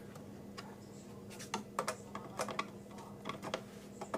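Irregular small clicks and taps of computer parts being handled and fitted, starting about a second and a half in, over a steady hum.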